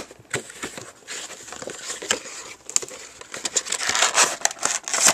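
Cardboard figure box being opened by hand: rustling, scraping and crinkling of the cardboard with many small clicks, thickening toward the end.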